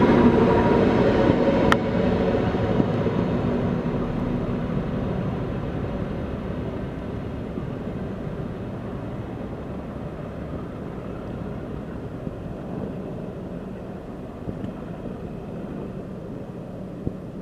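Class 456 electric multiple unit running past and fading away down the line, its wheels running on the rails. There is a single sharp click about two seconds in.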